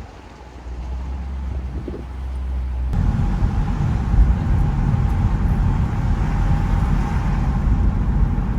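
Steady low rumble that steps up in loudness about three seconds in, with a faint steady hum above it.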